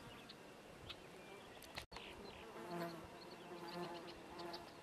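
Faint buzzing hum of a Nessus sphinx moth's wings as it flutters and hovers at the ground, strongest in the second half, with a momentary dropout just under two seconds in.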